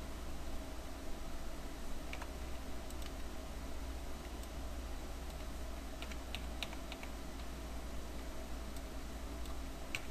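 A few scattered keystrokes on a computer keyboard, with a short run of presses about six to seven seconds in, over a steady low hum.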